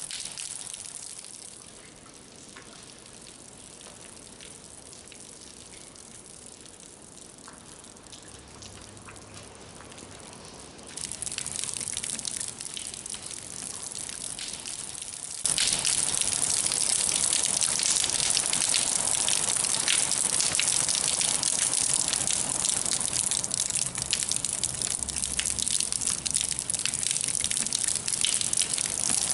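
A steady rushing hiss that jumps abruptly louder about eleven seconds in, and again, much louder, about fifteen seconds in.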